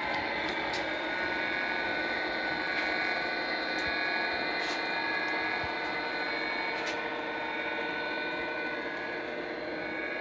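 Small electric motor and gearing of an O scale model railroad running with a steady whine, with a few faint clicks.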